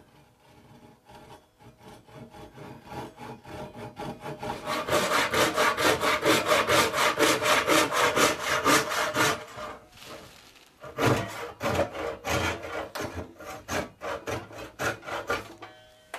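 Handsaw cutting through a walnut chair leg in rapid back-and-forth strokes. The strokes start light and grow loud and fast, stop briefly about ten seconds in, then go on more unevenly.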